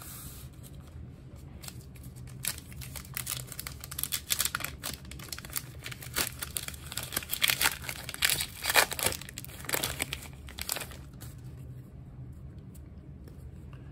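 Plastic wrapper of a Topps Archives 2022 baseball card pack crinkling and tearing as it is opened by hand, a run of crackles from about two seconds in until about eleven seconds in.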